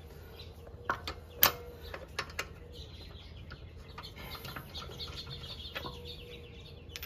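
Lug nuts and a socket being handled and threaded onto wheel studs by hand: a few sharp metal clicks and taps in the first couple of seconds, the loudest about a second and a half in.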